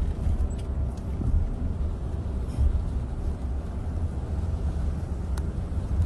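Steady low rumble of road and engine noise inside a moving car's cabin, with a couple of faint clicks.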